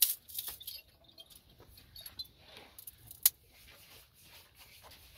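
Stirring stick scraping and knocking against a pot of thickening ugali, with scattered sharp clicks; the loudest comes about three seconds in.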